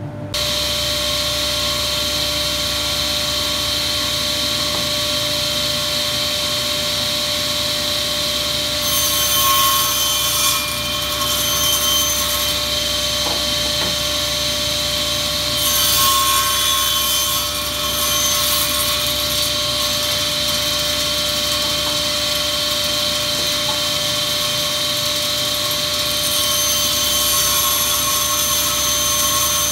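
Circular saw of a sliding-carriage combination woodworking machine running with a steady whine. Three times it cuts through a pine workpiece: about nine seconds in, around sixteen seconds, and again near the end, each cut adding a harsher hiss. These are cuts for a tenon.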